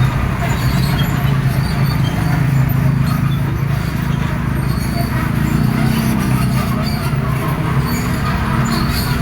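Diesel engine of a hydraulic excavator running steadily under load while digging, a constant low drone.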